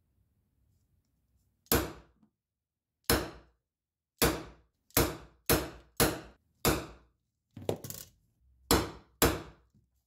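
Ball-peen hammer striking the end of a short stainless steel tube, about ten sharp metal-on-metal blows at an uneven pace, each with a short ring.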